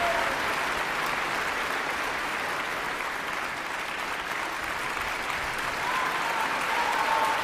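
Theatre audience applauding steadily, with a voice calling out over the clapping near the end.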